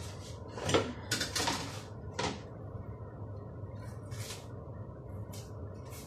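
Kitchen work clatter: a few sharp knocks and clinks of dishes and utensils, the loudest in the first two seconds or so, with short rustling scrapes later, over a steady low hum.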